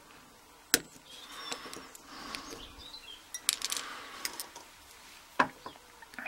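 Small metal clicks and light scraping as circlip pliers take the retaining clip off the back of a euro cylinder lock, and the clip and cylinder are set down on a plastic tray. Two sharp clicks stand out, one about a second in and one near the end.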